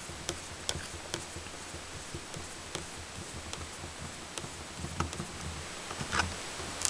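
Screwdriver turning out a small screw from a sheet-metal cover, giving faint, irregular ticks and clicks over a low steady hum.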